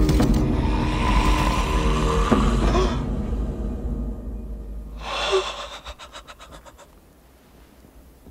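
A loud dramatic score fades off about three seconds in. About five seconds in, a man jolting awake from a nightmare gives one sharp, loud gasp, followed by faint breathing.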